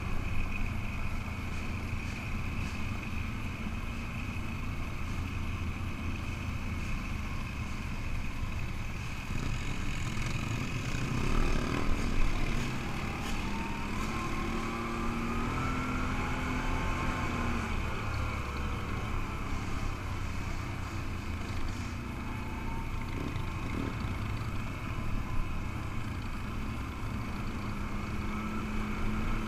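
ATV engine running as it rides along a dirt trail, with wind noise on the helmet microphone. A few knocks come about twelve seconds in, and then the engine's pitch rises as it speeds up.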